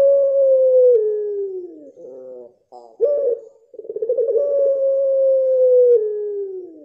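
Pied puter pelung (Barbary/ringneck dove) giving two long drawn-out coos. Each is held on one note and then slides down at the end, with a short broken stutter of notes about two seconds in, between them.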